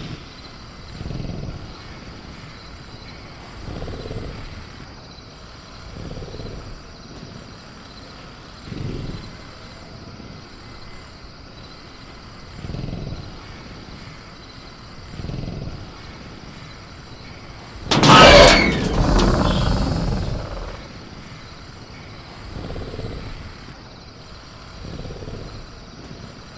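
Sound-designed caged velociraptor ambience: faint crickets over a steady jungle background, with a low sound swelling about every two to three seconds. About eighteen seconds in there is a loud crash with a raptor cry, the agitated raptor rattling its cage, which dies away over a couple of seconds.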